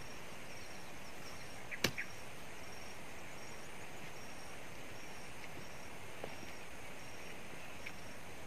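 A single sharp crack of wood about two seconds in, as a tree stump is pried and levered out of the soil with a long pole, with a fainter knock later on. Behind it is a steady outdoor hiss with a faint high chirp repeating about twice a second.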